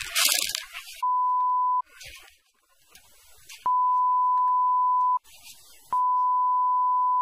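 Steady 1 kHz censor bleep tone sounding three times, one short and two longer, over the soundtrack. A loud noisy burst comes right at the start.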